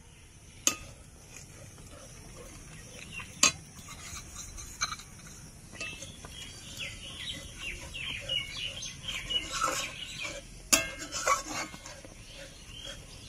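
Metal kitchenware clinking and knocking as a bowl of semolina is tipped into a pot of hot milk and stirred, with a few sharp clinks, the loudest about three and a half seconds in. Birds call in the background during the second half.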